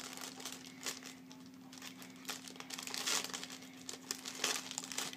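Clear plastic packaging bag crinkling and crackling as it is handled, in irregular bursts that are louder about a second in, around three seconds in and near the end, over a faint steady hum.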